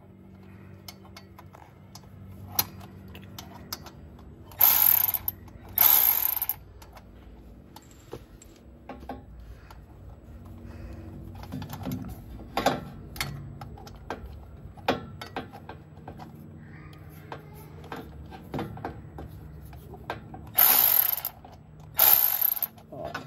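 Cordless electric ratchet running in short whirring bursts of under a second, two about five seconds in and two more near the end, backing out bolts that hold a bracket under the car. Between the bursts come scattered clicks and clinks of tools on metal over a faint steady hum.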